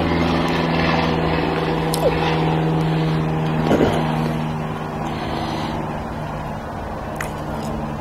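A steady low mechanical hum, a droning stack of even tones, that eases slightly about halfway through. A few faint clicks and smacks of eating sit on top.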